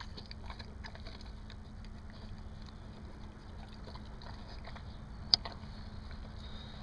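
Dog eating from a metal bowl: soft chewing and mouthing with scattered small clicks, and one sharp click about five seconds in, over a steady low rumble.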